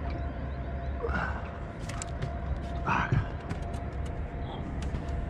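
Handling noises on a boat: a few light knocks and clicks over a steady low rumble, with two brief faint voice sounds about a second and three seconds in.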